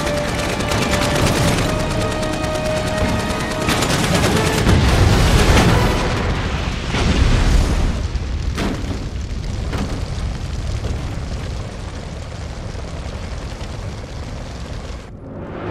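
Action-film soundtrack: rapid automatic gunfire for the first few seconds, then heavy explosions with deep rumbling about four and seven seconds in as a house blows up and burns. A dramatic music score runs underneath and carries on as the blasts die away.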